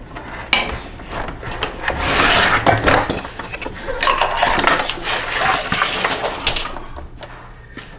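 Hand tools and metal mower parts clinking and clattering during disassembly of a Toro 21352 push mower, an uneven run of short knocks and rattles that is busiest through the middle and eases off near the end.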